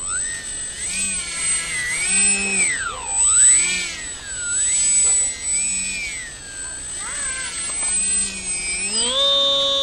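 Electric motor and propeller of a Polaris RC seaplane parkflyer whining as it taxis on snow, the pitch swooping up and down over and over as the throttle is blipped. Near the end the pitch jumps up and holds high: full throttle for the takeoff run.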